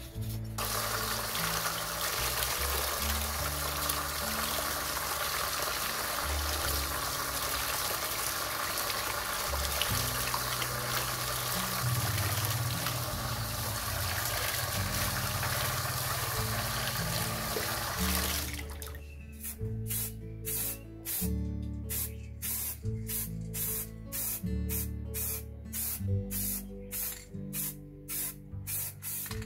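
Tap water running hard onto a metal fan guard and splashing into a plastic basin, under background music. About 18 seconds in this changes to an aerosol spray-paint can hissing in short repeated bursts, about two a second.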